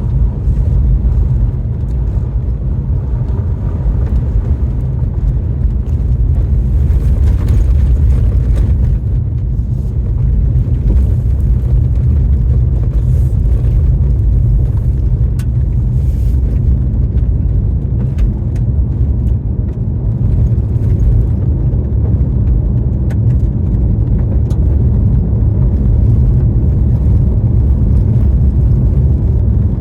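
Car driving on a snowy road: a steady, loud low rumble of engine, tyre and wind noise, with a few faint ticks.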